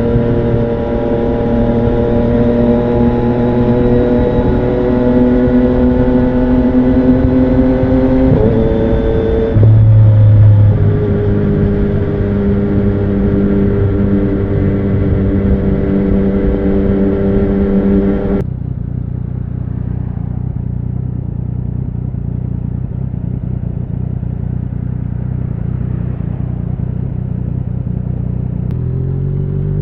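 2017 Yamaha MT-09's inline three-cylinder engine through an Akrapovic Racing Line carbon full exhaust, ridden at street speed. The engine note rises slowly, dips in pitch about eight seconds in, then holds steady and loud. About two-thirds of the way through it drops suddenly to a lower, quieter, steady note, and it climbs again at the very end.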